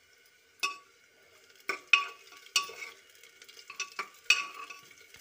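A ladle stirring sliced onions frying in oil in an open pressure cooker. It clinks and scrapes against the pot about eight times at uneven intervals, over a faint sizzle.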